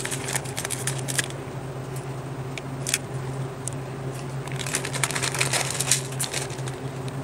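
Scissors snipping open a plastic instant-noodle packet, then the crinkly plastic wrapper rustling and crackling in a dense run as the dried noodle block is pulled out, over a steady low hum.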